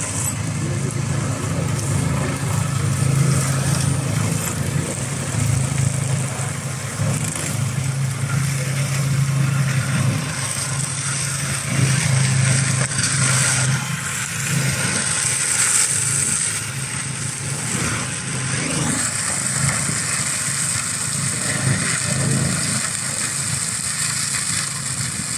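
Tractor engine running under load while it drives a forestry mulcher, whose rotor shreds brush and saplings. A steady low engine hum lies under a rough shredding noise that grows harsher about halfway through.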